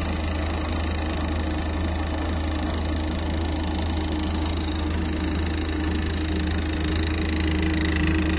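Sewage vacuum tanker truck's engine running at a steady idle, a constant low hum.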